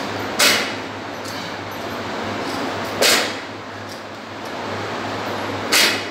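Barbell clean and jerks with a 50 kg bumper-plate bar: three short, sharp sounds about two and a half seconds apart, one for each rep, over a steady low hum.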